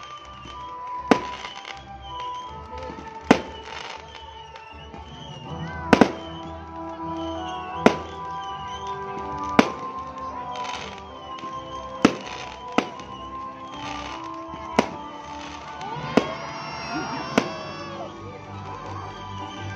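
Aerial fireworks going off in a show, each shell bursting with a sharp bang roughly every one to two seconds, about ten in all, over music.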